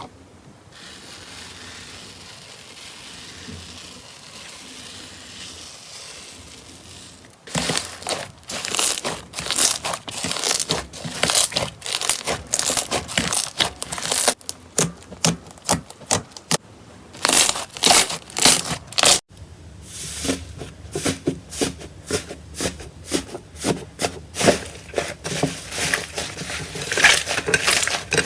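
Slime being handled by hand: a soft, steady rustle for the first several seconds, then dense, irregular crackling and popping as the slime is squeezed and pressed. The crackling breaks off briefly past the middle, then carries on.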